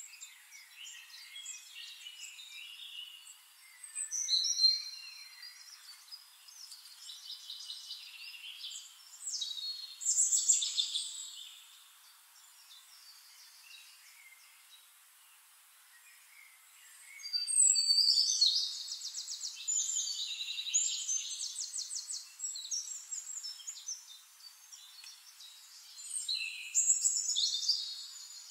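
Songbirds singing: chirps and fast trills in several louder bouts, about four, ten, eighteen and twenty-seven seconds in, with quieter twittering between.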